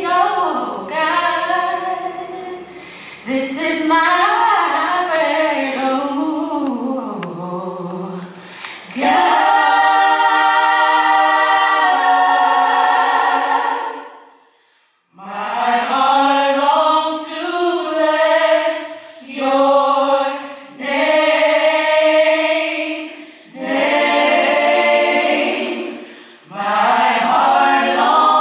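Choir singing in phrases with long held notes, with a short break about halfway through.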